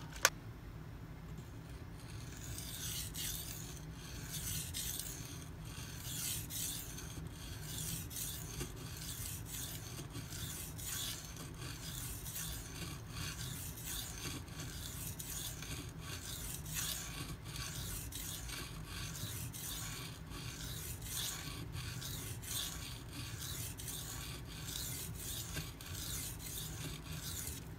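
Steel knife blade (a Spyderco Paramilitary 2 in 52100 steel) stroked back and forth on a Shapton water stone in a rhythm of repeated gritty scraping strokes. The bevel is being ground toward the apex to raise a burr along the edge.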